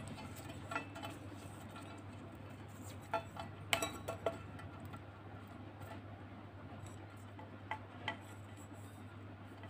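Black plastic desk-lamp base being handled and turned over, giving a few light clicks and knocks, most of them in a cluster about three to four seconds in and two more near the end.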